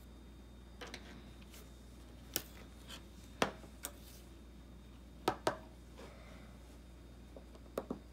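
Scattered light clicks and taps from an iPhone 6s screen assembly, with its metal shield plate, being handled and tipped on edge against a wooden tabletop. About eight short, sharp ticks, some in quick pairs.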